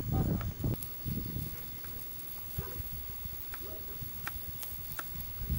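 Cooking over a wood fire: scattered sharp crackles and pops over a faint hiss, with low rumbling in the first second.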